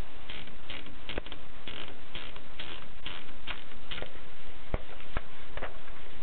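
Keys being typed on a Kolibri manual typewriter: an uneven run of clacks, about two a second, with a few sharper strikes, over a steady hiss and low hum.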